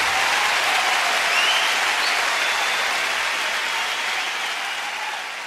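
A steady wash of hiss-like noise with no clear tone or beat, slowly fading away as the soundtrack music ends.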